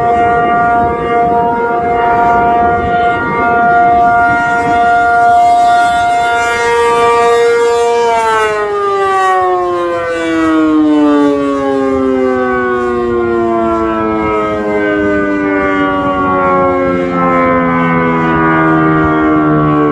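ACA P-50 outdoor warning siren sounding its steady alert, a loud two-note chord. About eight seconds in, the power cuts and the siren winds down, its chord falling slowly and steadily in pitch.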